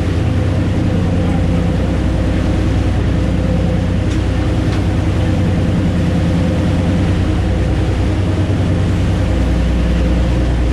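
A large fishing party boat's engines running steadily underway, a low, even drone with a rush of wind and water noise over it.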